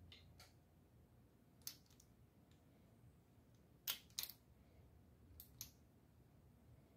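Socket ratchet clicking in short pairs against near silence, worked on the rocker-arm adjusting nuts to take up the play while setting hydraulic lifters to zero valve lash.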